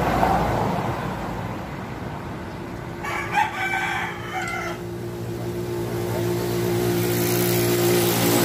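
A rooster crows once, about three seconds in, a single call lasting nearly two seconds. Underneath, a motor runs steadily.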